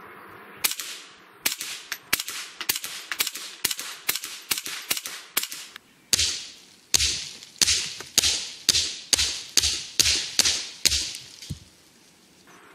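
Rapid semi-automatic fire from a Ruger 10/22 .22LR rifle shooting subsonic ammunition: a string of sharp shots, about three a second. There is a brief pause about six seconds in, and the shots then go on at the same pace until near the end.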